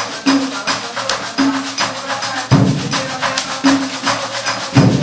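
Pandeiro played by hand in a fast, steady coco rhythm, its jingles rattling on every stroke and its skin giving a low tone about once a second. Two deeper drum thuds fall in, about halfway through and near the end.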